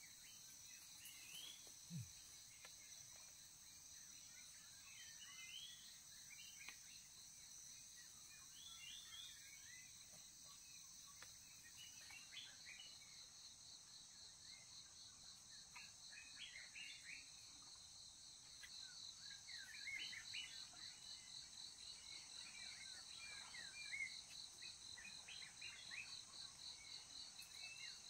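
Faint insect and bird ambience: several steady high insect drones and trills, with a rapidly pulsing insect trill that grows louder about two-thirds of the way in, and scattered short bird chirps throughout.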